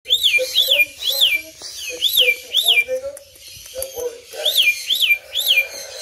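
Cockatiel whistling its song: a string of clear whistled notes, each rising then falling, five in the first run, then after a pause three more near the end.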